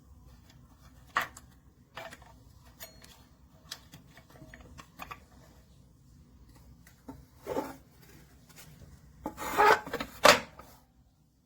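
Objects being handled and rubbed, with scattered light clicks and knocks and a louder stretch of rubbing and two sharp knocks near the end.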